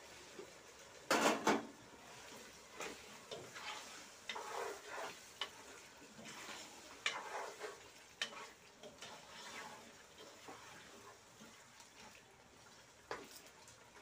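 Wooden spoon stirring chicken pieces in thick masala in a large metal cooking pot: irregular wet scraping strokes and knocks of the spoon against the pot, the loudest a pair of sharp knocks about a second in and another near the end.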